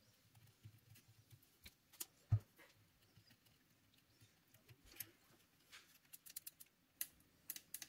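Faint, scattered small clicks and taps of a cotton swab scrubbing soldered joints on a circuit board, with one louder knock about two seconds in. Near the end the clicks come closer together as the board is handled in its clamp holder.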